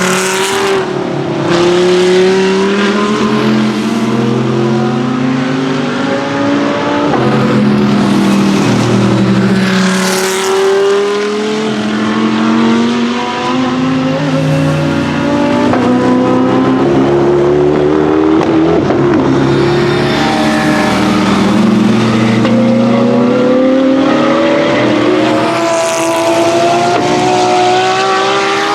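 Race cars running at speed, one after another. Their engines rise in pitch through the gears, dropping at each upshift, and several cars pass close by.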